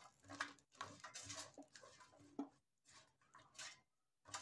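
Faint, irregular scraping and rustling of half-cooked potato sticks being stirred with a spatula in an air fryer basket, with a few light taps.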